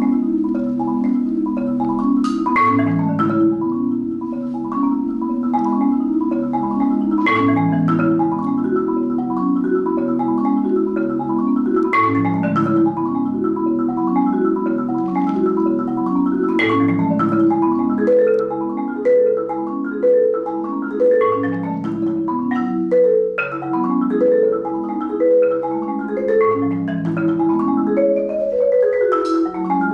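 Solo Yamaha concert marimba played with mallets: a continuous flowing passage of notes, rich in the low register, with a sharper accented strike about every five seconds. In the second half a line of higher notes joins the low pattern.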